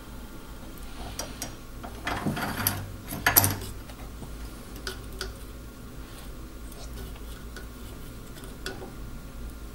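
Light metallic clicks and clatter of soldering tools and a solder reel being handled at a workbench, with two short, louder clattering bursts a couple of seconds in. A steady low hum sits underneath.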